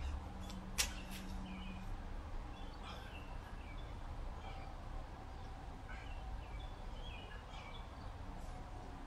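Outdoor background sound: small birds chirping now and then over a low, steady hum, with one sharp click about a second in.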